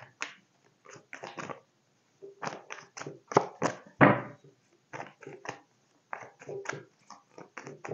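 A deck of tarot cards being shuffled and handled by hand: a run of short, crisp card flicks and slaps coming in irregular clusters with brief gaps.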